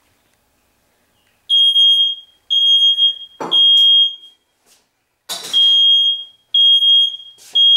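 Smoke alarm going off with a high-pitched beep in the temporal-three pattern: three beeps, a pause, then three more, starting about a second and a half in. A few sharp knocks sound between the beeps.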